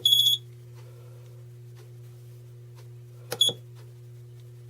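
CNC frame tracer's electronic beep: a click and a short high beep right at the start, then another click and brief beep about three and a half seconds in, over the machine's steady low hum.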